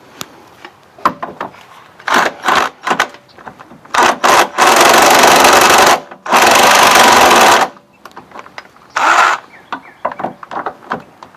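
A power tool running in bursts, driving a running-board bracket bolt: a few short bursts about two seconds in, two longer runs of about a second and a half each in the middle, and a short burst near the end.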